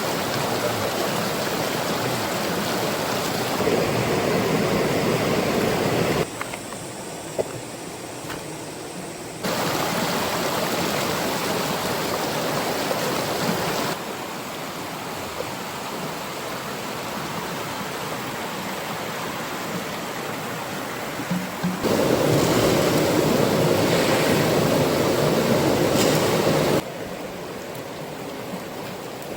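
Rushing water of a stream and small waterfall, a steady hiss whose loudness jumps up or down abruptly several times as the shots change.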